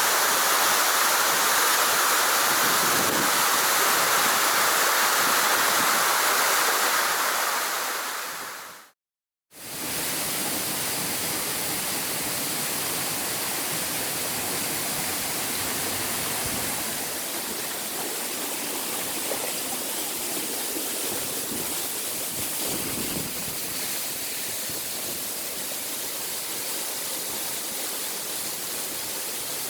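Steady rush of water from a waterfall. About nine seconds in it fades out to a moment of silence, then returns a little quieter.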